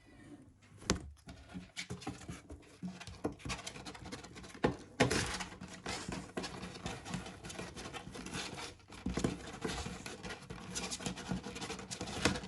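A kitten scrabbling and moving about in its enclosure: continuous rustling and scratching, broken by a few light knocks.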